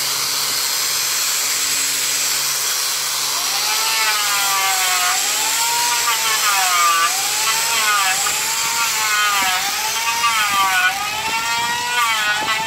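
Small angle grinder with a sanding disc sanding a jackfruit hardwood door, its motor whining steadily. From about four seconds in, the pitch wavers up and down about once a second.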